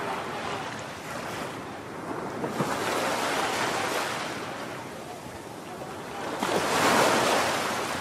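Heavy ocean surf breaking on the shore, a steady rush of water that swells twice, the louder surge about seven seconds in.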